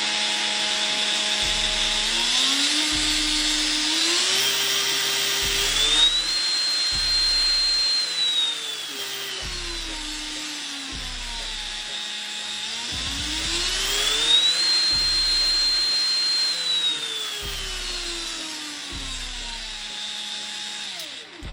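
24 V brushless angle grinder running, a dense hiss with a motor whine that climbs and falls in pitch twice as its speed changes.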